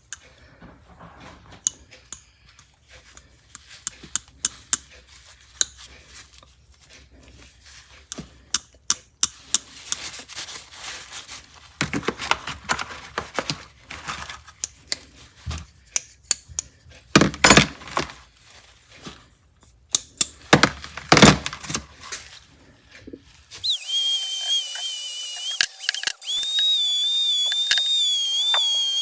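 Irregular metallic clicks, clatter and scraping of old pliers being worked and handled. About three quarters of the way through this gives way abruptly to background music with a high, wavering melody.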